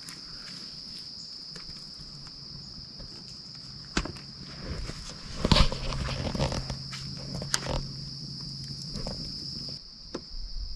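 Crickets chirring steadily in the night woods, with a few sharp knocks and clatters and some rustling near the middle.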